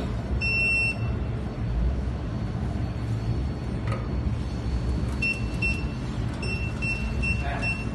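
Jewelry laser welding machine running with a steady low hum, giving a short high beep about half a second in and then a run of short beeps about twice a second from about five seconds in.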